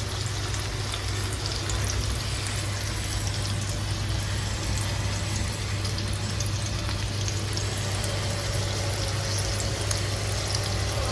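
Masala-coated fish pieces shallow-frying in hot oil in a pan: a steady sizzle with fine crackling, over a steady low hum.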